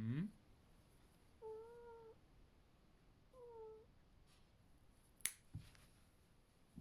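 Domestic cat protesting a claw trim: a short low rising grumble at the start, then two short mews a couple of seconds apart. About five seconds in, one sharp click, like a nail clipper snipping a claw.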